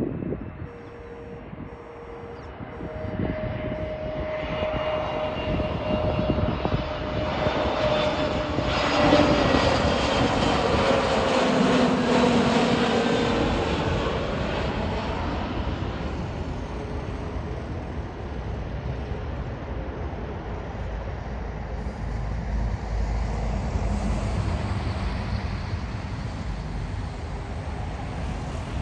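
British Airways jet airliner on approach to land, passing close by. Its engine noise builds, is loudest about ten seconds in, and its whine falls in pitch as it goes past, then slowly fades. Wind buffets the microphone underneath.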